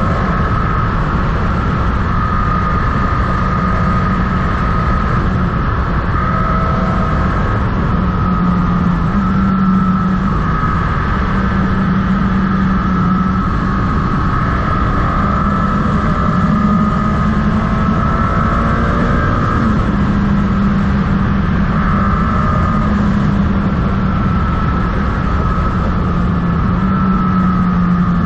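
Motorcycle engine running at a steady cruise, its note rising and dipping slightly with the throttle, over a constant low rumble of wind and road noise.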